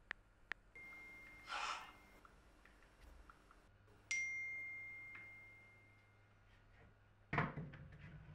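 Phone interface sound effects: a short swoosh about one and a half seconds in, then a bright bell-like notification ding about four seconds in that rings on and fades over a couple of seconds. Near the end there is a single knock.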